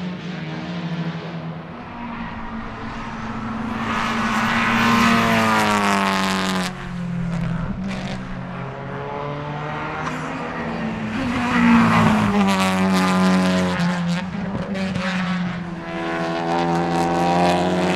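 Honda Civic Type R FL5 TCR race cars, 2.0-litre turbocharged four-cylinder engines, accelerating and passing one after another on a wet track, with the hiss of tyres on the wet surface. One engine note climbs and then drops off suddenly about seven seconds in, the loudest pass comes near the middle, and another car builds up near the end.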